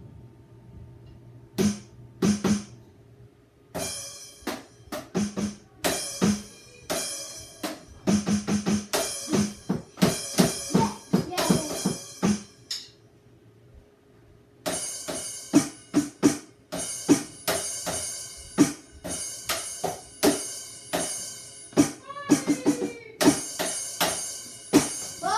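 A drum beat with low thumps and bright high strikes, played in two runs with a pause of about two seconds in the middle. The second run is denser.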